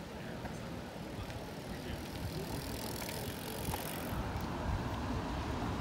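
Low, uneven rumble of wind on a handheld phone's microphone over the general noise of a busy park path, growing slowly louder toward the end.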